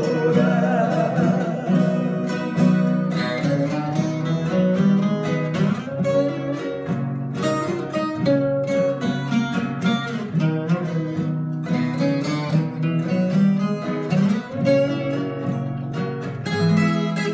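Instrumental break of a sertanejo caipira duet: a viola caipira picks a quick melodic run over a strummed and plucked nylon-string guitar (violão). A held sung note trails off at the very start.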